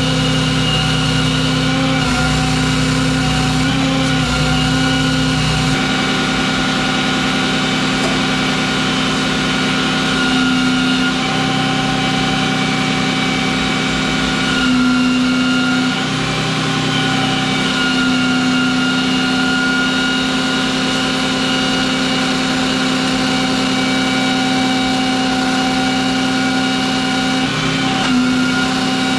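Service truck's engine running to power its crane during a lift. A steady drone with a whine, its pitch shifting a couple of times as the crane is worked.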